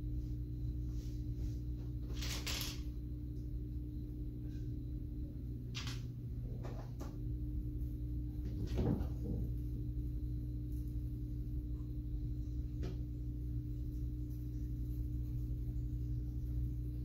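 Plastic Lego bricks clicking and clacking as they are handled and pressed together: a few separate clicks, the loudest about nine seconds in, over a steady low hum.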